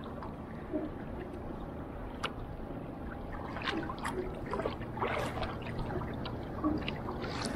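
Water sloshing against a small wooden dugout canoe as a single-bladed paddle is dipped and pulled through the sea, with a few short splashes and light knocks spread through the strokes.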